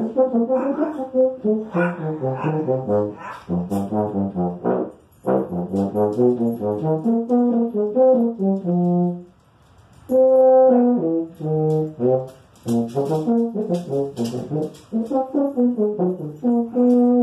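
A tuba playing a melody of quick short notes, stopping briefly about nine seconds in, then going on with a few longer held notes.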